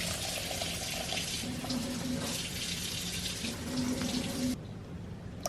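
Water pouring steadily into a saucepan of dried herbs, stopping suddenly about four and a half seconds in.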